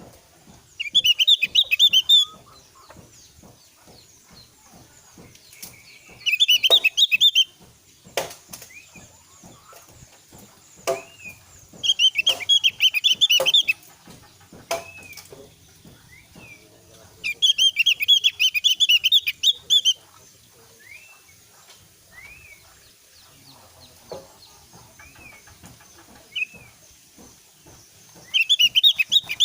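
Javan grey-throated white-eye (opior Jawa) singing in five bursts of rapid, high chattering song, each one to three seconds long. Single short down-slurred call notes come in the gaps.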